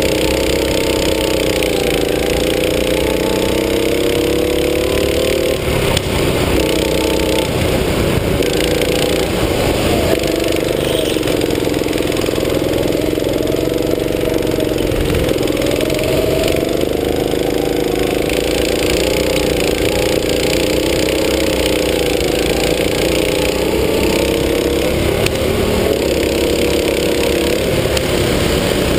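Go-kart engine running hard under the driver, its pitch rising and falling over and over as the throttle is opened on the straights and eased for the corners.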